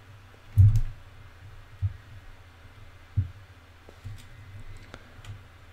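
Faint computer mouse clicks and a few short low thumps of desk noise picked up by the microphone; the loudest thump comes about half a second in, over a faint steady hum.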